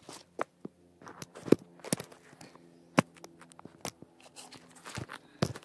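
Irregular sharp knocks and taps, about eight over a few seconds, the loudest about a second and a half in and at three seconds.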